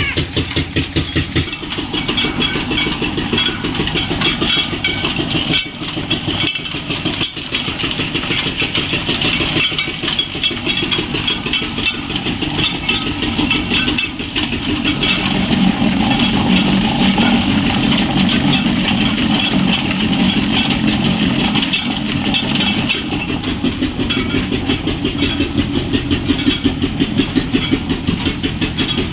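Single-cylinder 'Peter' diesel engine running steadily with a rapid even beat, driving a mustard-oil expeller through a flat belt and pulley.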